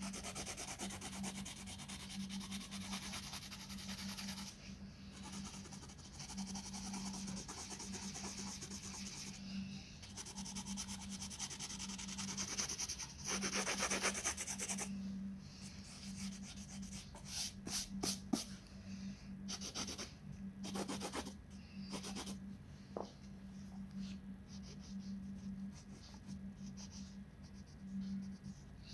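Colouring pencil scratching on paper in quick back-and-forth shading strokes, the strokes becoming more separate in the second half, over a low steady hum.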